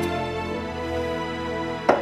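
Background music with long held chords, slowly getting quieter. Near the end, one short sharp sound cuts in over it.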